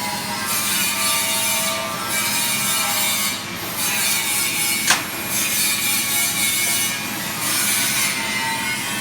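Continuous rasping metalwork on stainless steel, swelling and easing in a slow repeated stroke, with a sharp click about five seconds in.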